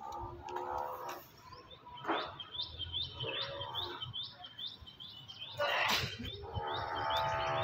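A small bird chirping repeatedly in short high notes, about three a second, through the middle. A longer pitched call sounds near the end, and a brief noisy rush comes just before it.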